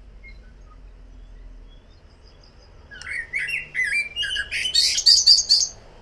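Common blackbird singing one phrase about three seconds in: a quick run of warbled notes that ends in a louder, high twitter.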